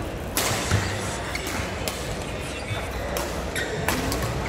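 Badminton rally: rackets striking a shuttlecock about six times at uneven intervals, each a sharp short hit, over steady hall noise.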